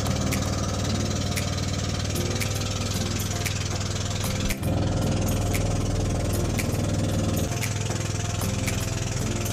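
Bangka (outrigger motorboat) engine running steadily under way, with a brief dip about halfway through.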